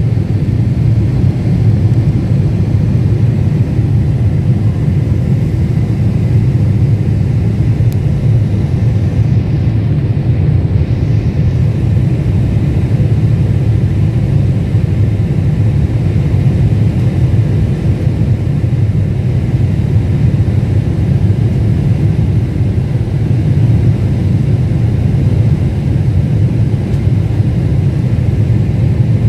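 Steady low rumble of a Boeing 747-8 Intercontinental's GEnx engines and rushing airflow, heard inside the passenger cabin beside the wing while the airliner descends through cloud.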